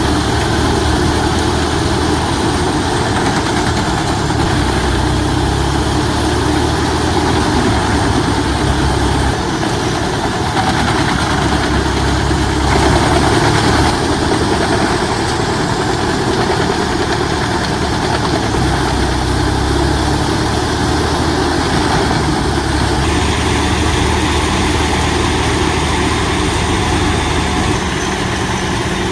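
Pezzolato PTH 1400 wood grinder running, its 800-horsepower Caterpillar C18 diesel engine droning steadily as the machine works.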